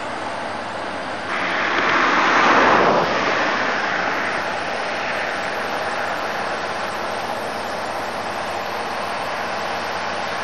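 Crawler bulldozer running as it pushes earth, heard as a steady rushing noise that swells for about two seconds a little over a second in, then settles.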